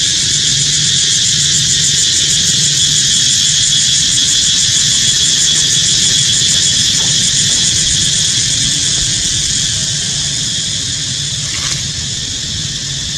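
Steady, high-pitched insect buzzing drone with a fast pulsing texture, easing slightly near the end, over a low hum.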